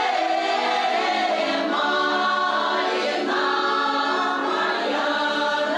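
Women's folk choir singing a Russian folk song together, several voices holding long sung notes that shift in pitch.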